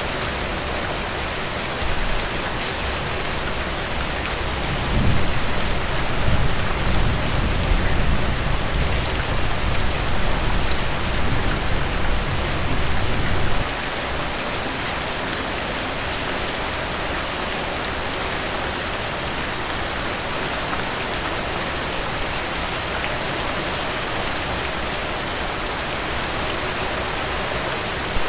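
Heavy rain falling steadily with a dense patter. From about two seconds in, a long low rumble of thunder swells, then stops suddenly about halfway through.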